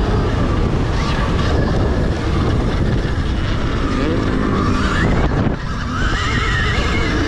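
Electric dirt bike at race pace: a loud, steady rush of noise with the motor's whine rising in pitch twice, about four and six seconds in, and a brief drop in level between them.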